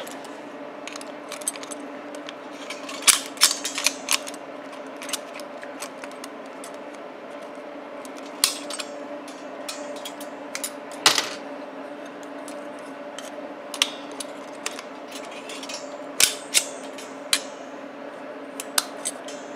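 Scattered light metallic clicks and clinks of a steel piston ring expander being handled and set on a small-engine piston's rings to take one off. The clicks come irregularly, in a small cluster a few seconds in and singly later, over a steady low hum.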